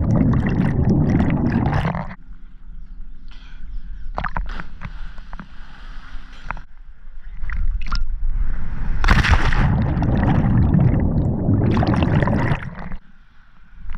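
Water sloshing and gurgling, in loud rough surges at the start and again from about nine seconds in, with a quieter stretch of scattered knocks in between.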